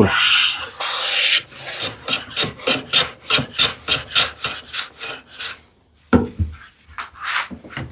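A hand tool rasping on wood in quick back-and-forth strokes, about three a second, with a short pause and a few more strokes near the end.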